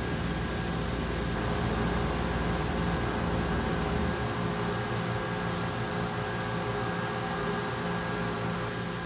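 Steady mechanical hum and hiss with several constant tones. The deep low rumble drops away about four seconds in.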